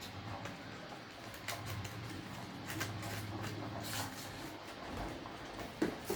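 Handling noise from a phone's retail box and its paper inserts: light rustling and scattered small clicks, with a couple of sharper knocks near the end, over a low steady hum.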